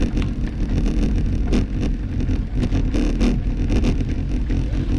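Road bike riding over a dirt trail: a steady rumble of tyres and wind on the microphone, with scattered sharp clicks and rattles from bumps.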